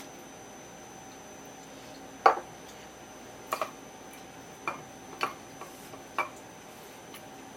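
Six light knocks and clicks of kitchen utensils and dishes being handled and set down, the loudest a little over two seconds in, over a faint steady hum.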